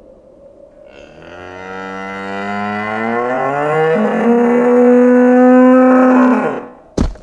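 A cow's long drawn-out moo that rises in pitch for its first few seconds, then holds steady before fading out. A single sharp knock follows near the end.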